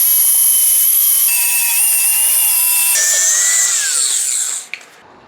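Power grinder grinding a lip off a metal bracket, a loud high whine that drops in pitch a couple of times as it bites, then spins down and stops near the end.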